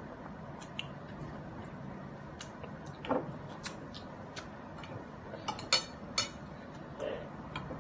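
Eating utensils clicking and clinking against a plate at an irregular pace, with a few sharper clinks about three seconds in and around six seconds in, over a steady low room hum.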